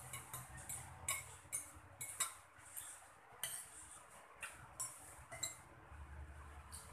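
Metal spoon and fork clinking and scraping against a ceramic plate and bowl while eating, a string of irregular light clicks.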